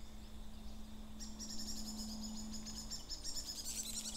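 Small birds chattering in a fast run of high chirps that starts about a second in and carries on, over a faint steady hum.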